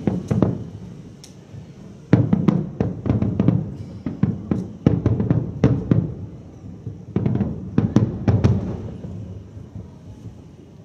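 Aerial fireworks shells bursting in rapid volleys of loud bangs, each followed by a rumbling echo, coming in four clusters and fading away near the end.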